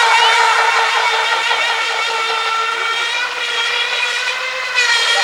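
RC catamaran model boat's F2835 4000KV brushless outrunner motor running under power: a steady high-pitched whine with a stack of overtones. It eases off slightly in the middle and gets louder again near the end.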